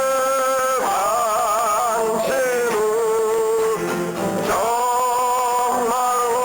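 Live acoustic folk music: long held, wavering melody notes, tagged as singing, over acoustic guitar.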